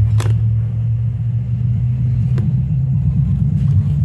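Subwoofer driven by a SOCL 504 power amplifier through an NE5532 low-pass subwoofer filter, playing loud deep bass that shifts slightly in pitch; only the low end comes through, with a few faint clicks over it.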